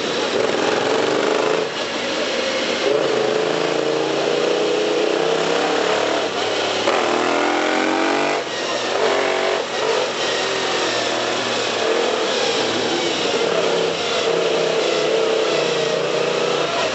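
Sport motorcycle's engine running, with a revving rise in pitch about six to eight seconds in that drops back, then running on steadily.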